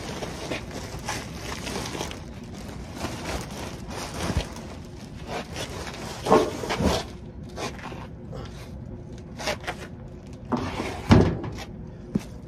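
A heavy plastic trash bag rustling as it is hoisted up over the rim of a steel dumpster, then dull thumps as it is tipped in, about six and seven seconds in. A louder thump comes near the end.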